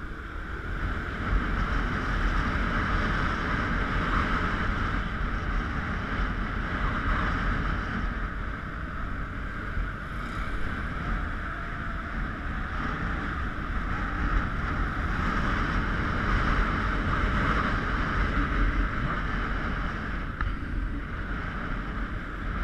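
Motorbike riding along a street: steady engine and road noise, with wind buffeting the microphone.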